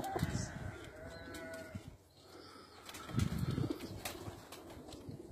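Domestic pigeons cooing. The low coos come near the start and again about three seconds in.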